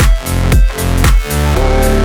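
Background music with a heavy electronic bass beat, about two hits a second, which gives way to a steadier held bass about one and a half seconds in.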